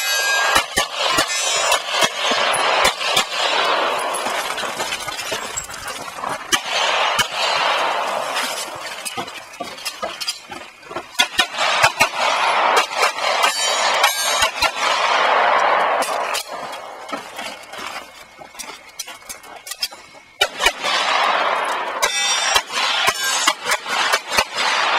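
Strings of 9mm pistol shots from a CZ SP-01 Shadow fired in rapid succession, in several clusters separated by short pauses while the shooter moves between positions.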